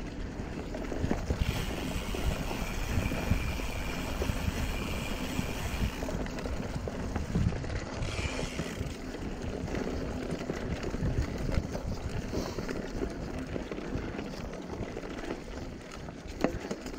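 Mountain bike rolling fast over a dirt singletrack: tyre noise on the rough ground with constant small rattles and knocks from the bike and a camera mounted on it. A higher whirr joins in about two seconds in for a few seconds, and again briefly around the middle.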